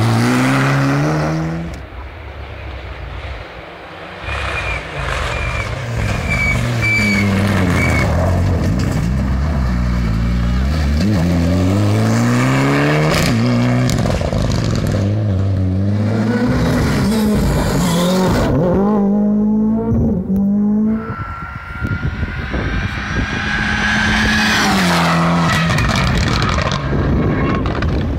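Rally car engines accelerating hard through the gears, the pitch climbing and dropping back with each upshift, over several runs. A high whine rises slowly in the last few seconds.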